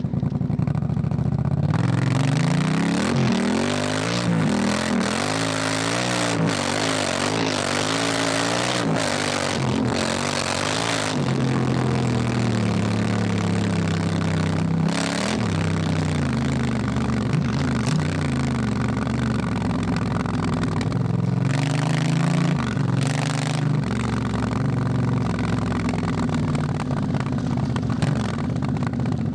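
Honda Africa Twin motorcycle's parallel-twin engine on the move, its pitch repeatedly rising and falling as it accelerates and shifts. A loud rushing noise of wind covers it from about two seconds in to about eleven seconds, and comes back briefly near the end.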